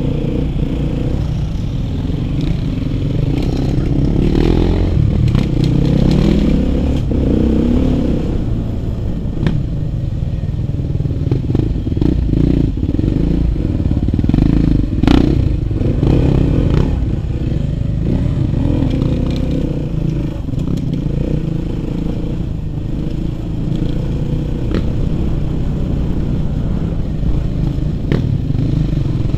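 Onboard sound of a Suzuki RM-Z 450 four-stroke single-cylinder dirt bike engine running at low to mid revs, rising and falling as it picks its way up a rough, rocky trail. Knocks and clatter from stones and the bike's chassis come through, with a sharp knock about halfway.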